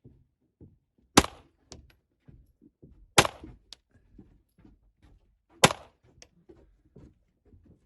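Three shots from a Browning Challenger .22 LR semi-automatic target pistol, spaced about two seconds apart. Each shot is followed about half a second later by a faint tick.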